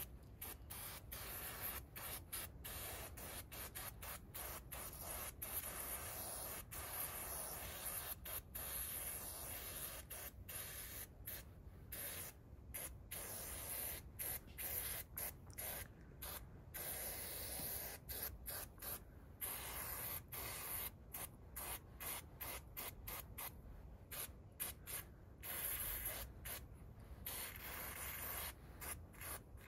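Aerosol spray-paint can hissing in many short bursts and some longer ones, starting and stopping throughout as paint is sprayed onto fabric.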